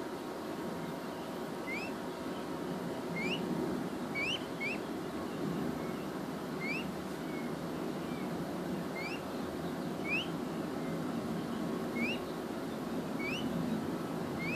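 Peachick peeping: about ten short, quickly rising chirps, spaced a second or two apart and sometimes coming in quick pairs, over a steady low background noise.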